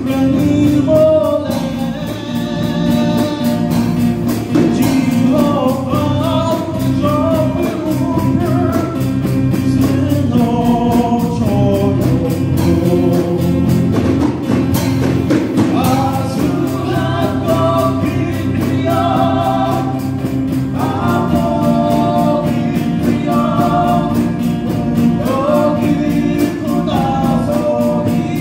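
Live band performing a gospel song: a man sings the melody over acoustic guitar, electric bass and drums with a steady beat.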